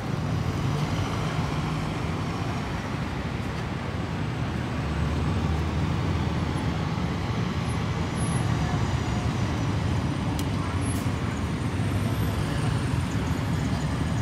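City traffic rumble at a busy junction: a steady low hum of engines and tyres, with a London double-decker bus drawing nearer and the rumble growing a little louder about a third of the way in.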